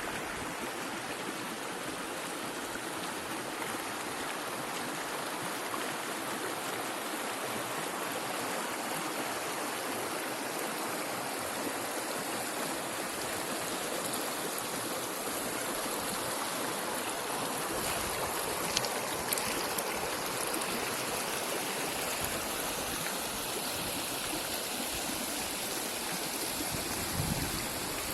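Small river and waterfall rushing: a steady, even water noise.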